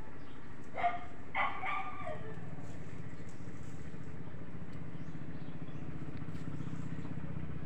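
A dog barks twice about a second in, the second bark longer and falling in pitch, over a steady low hum.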